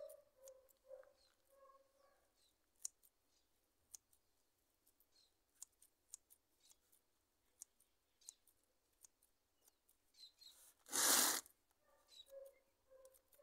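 Scissors snipping through seedling stems: scattered quiet clicks, with one brief louder rush of noise near the end.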